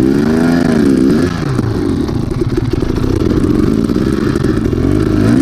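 Dirt bike engine revving up and down under throttle on a rocky climb. Its pitch dips and rises again about a second in and once more near the end.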